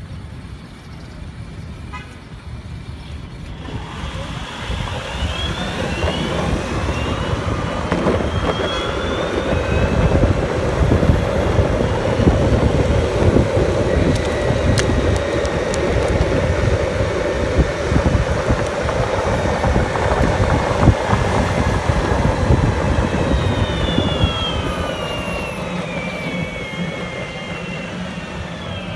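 Wind rushing over the microphone of a moving bike on a city street, building as speed picks up. A whine rises in pitch about five seconds in, holds steady, and falls away again near the end.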